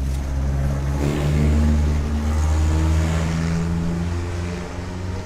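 A motor vehicle's engine and tyres passing by, the sound swelling to a peak about two seconds in, shifting slightly in pitch, then fading away.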